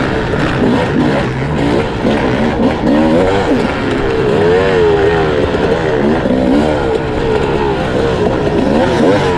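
Sherco 300 SE-R single-cylinder two-stroke dirt bike engine under hard riding, its pitch rising and falling over and over as the throttle is opened and closed.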